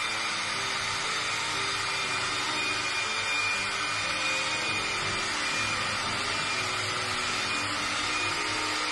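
Electric mixer running steadily at speed, beating butter and sugar together for a cake batter, with a thin steady whine over the motor noise.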